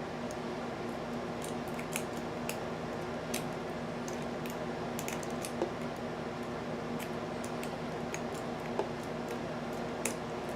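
Faint, irregular small clicks of a steel hook pick working the pins of an American Series 700 padlock held under a tension wrench, over a steady low hum.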